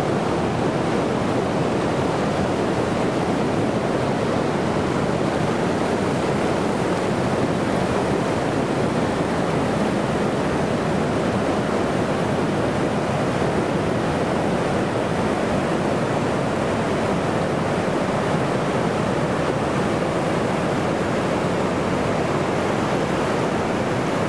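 Floodwater of a swollen river rushing steadily through rapids: a constant, even rush of water.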